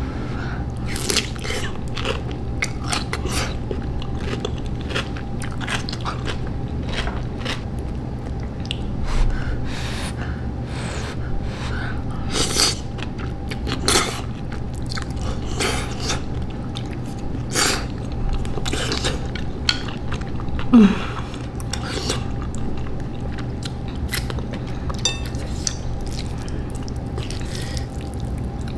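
Close-up mukbang eating sounds: wet chewing, lip smacks and crunchy bites of raw cucumber and spicy noodles, coming irregularly over a steady low hum. About two-thirds of the way through there is a brief voiced hum from the eater.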